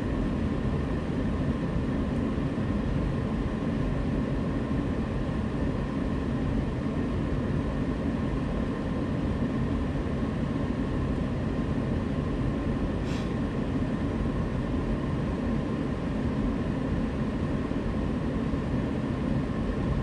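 Freightliner cab HVAC blower motor running steadily, air rushing through the ducts, as the HVAC control cycles it through its reset self-test.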